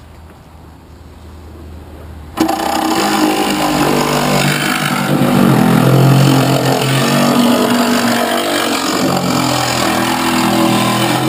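Handheld power saw cutting into a jet ski's fibreglass hull. It starts suddenly about two seconds in, runs loud for about nine seconds with a wavering pitch as it works, and cuts off abruptly.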